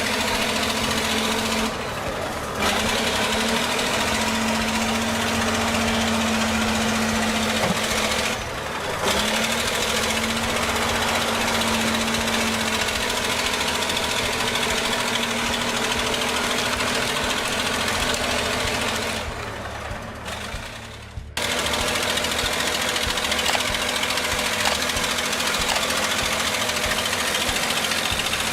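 Heavy tree-removal machinery running loud and steady: an engine under load with dense grinding and rattling from the cutting work. The sound drops out briefly three times, at about two seconds, about eight seconds and about twenty seconds in.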